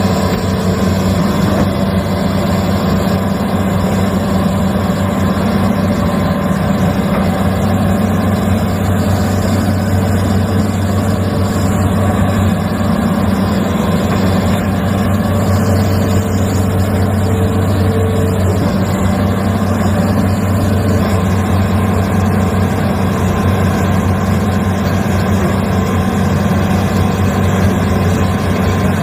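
Hitachi Zaxis 210F amphibious excavator's diesel engine running steadily under load, a constant low drone, as the pontoon tracks and boom work to haul the machine up out of the mud.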